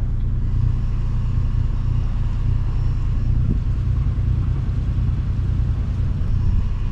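Sailboat's inboard engine running at low speed, a steady low rumble heard from on deck as the boat is brought slowly into its berth.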